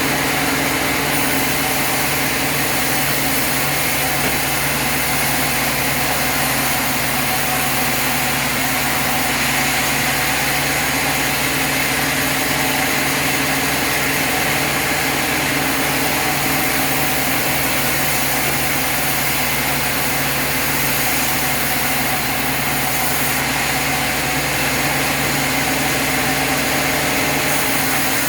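Sawmill machinery running, a steady engine-like hum that holds level throughout without rising or dropping.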